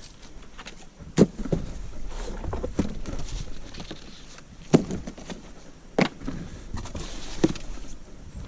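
Packaging rustling as sawmill kit parts are unpacked and handled, with several sharp knocks as parts are set down, the loudest about a second in.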